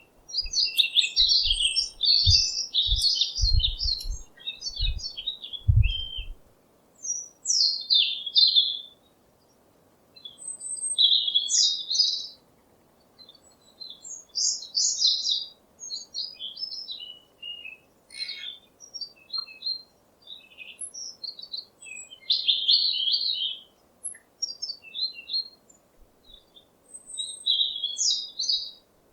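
Small songbirds chirping and twittering in short, irregular high-pitched phrases with brief pauses between them. A series of low thuds sounds under the birdsong during the first six seconds.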